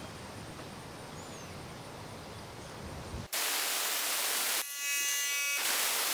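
Capri Tools air-powered vacuum brake bleeder hissing as compressed air rushes through it, starting suddenly about three seconds in after faint background. For about a second in the middle the hiss drops to a buzzy whistle, then the full hiss comes back. The tool is pulling a vacuum on its hose to suck old brake fluid out of the master cylinder reservoir.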